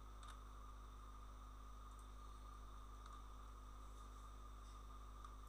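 Near silence: a steady low electrical hum and faint hiss of the recording setup, with a few faint clicks.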